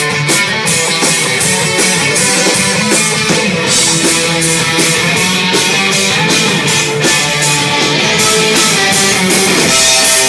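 Live rock band playing loud, with guitars and a drum kit keeping a steady beat.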